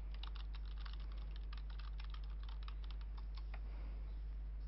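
Typing on a computer keyboard: a quick run of key clicks that thins out and stops about three and a half seconds in, over a steady low hum.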